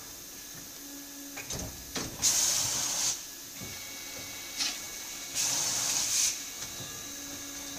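Willemin-Macodel W 408 B machining center's coolant nozzles giving two hissing bursts of spray, each about a second long, with mechanical clicks and knocks before them. A faint steady high tone runs underneath from about midway.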